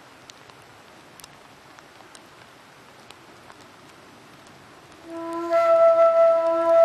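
A steady, flute-like whistled note, one unchanging pitch with overtones, comes in about five seconds in and holds, with a brief dip near the end. Before it there is only faint hiss and light ticks.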